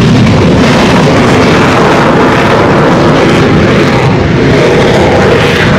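Loud, steady jet roar of an F-35B Lightning II's Pratt & Whitney F135 engine at high thrust in a short takeoff, with the lift fan engaged as the jet climbs away.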